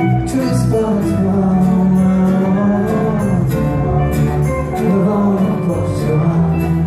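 Live rock band playing: strummed acoustic and electric guitars, bass and drums with steady cymbal strokes, heard through the concert hall's PA from the audience.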